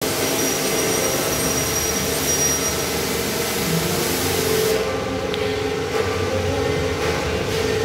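Car-wash pressure washer running steadily, its motor humming under the hiss of the spray; the hiss drops away about five seconds in, leaving the lower motor hum.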